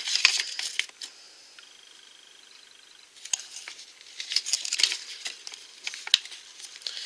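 Crinkling and rustling of small plastic packaging handled by fingers close to the microphone, in two spells with a quieter gap of about two seconds between them.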